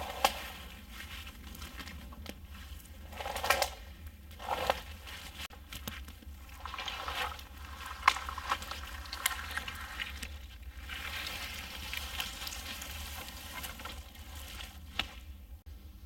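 Rustling and crackling of spruce twigs and undergrowth in irregular bursts, with a few sharp snaps, as a thin dead spruce trunk is moved through the brush.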